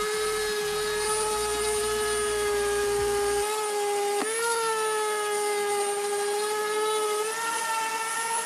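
Electric power tool motor spinning up and running at a steady high whine. Its pitch sags briefly about four seconds in as it bites into the work, then recovers. It is switched off and winds down at the end.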